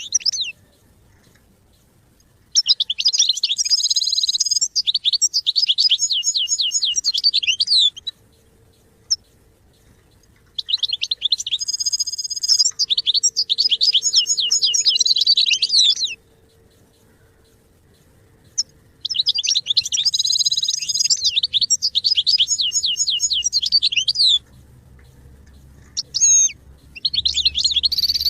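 European goldfinch singing: long phrases of fast, high twittering and liquid trills, each several seconds long, separated by pauses of two to three seconds, with a short call just before the last phrase.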